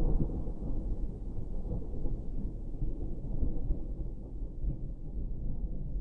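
Low, uneven rumble of wind buffeting the microphone, easing off toward the end.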